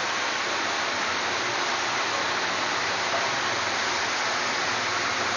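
Steady, even background hiss with no other sounds standing out.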